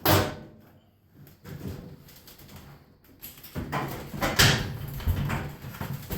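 Knocks and clatter from work on a top-load washing machine's top panel: one sharp knock at the start, then a run of knocks and scraping from about three and a half seconds in.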